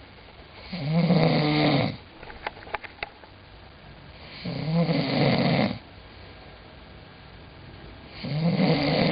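A sleeping person snoring: three snores, each lasting about a second, roughly every three and a half to four seconds. A few short clicks sound in the pause after the first snore.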